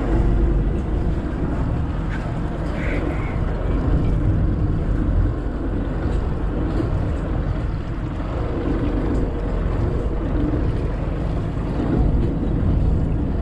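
A fishing boat's engine running steadily, with wind rumbling on the microphone.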